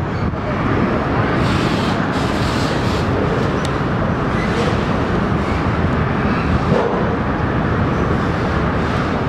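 Long double-stacked container freight train rolling over a steel truss railway bridge: a steady, loud rumble and rattle of wheels on the rails that does not let up.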